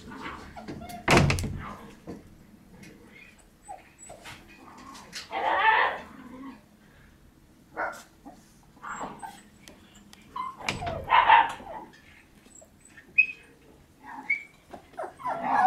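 Shiba Inu puppies barking and yipping in bouts while they play, with a sharp thump about a second in.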